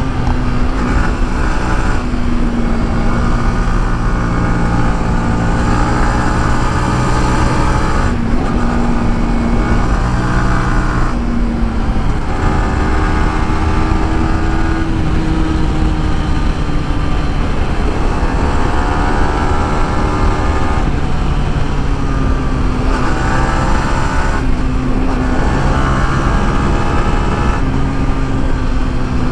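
Motorcycle riding on the road, its engine note holding steady and then shifting every few seconds, under heavy wind noise on the microphone.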